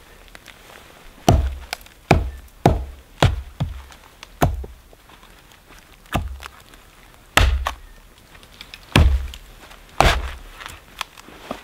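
Axe chopping into a piece of dead, dry cedar held upright on a log, splitting off pieces: about a dozen sharp strikes at uneven intervals, with a short pause in the middle.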